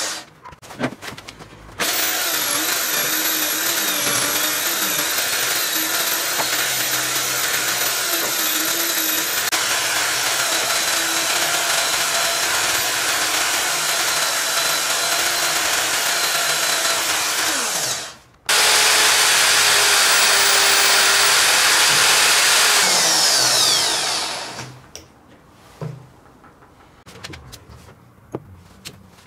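Bosch electric drill, clamped on the bench, running steadily with a polishing wheel in its chuck as a small metal weight is held against the spinning wheel. It starts about two seconds in, stops for a moment, runs again a little louder, then winds down about five seconds before the end, leaving a few light handling clicks.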